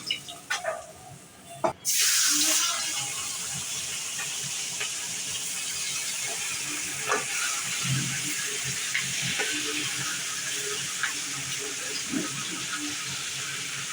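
Food dropped into hot frying oil: a sudden loud sizzle about two seconds in that settles into a steady sizzle, with a few small spatters and ticks.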